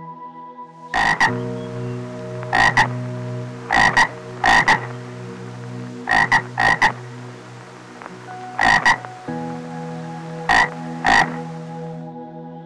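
Frogs croaking in short, sharp calls, most of them quick doubles, repeated every second or two over a steady hiss.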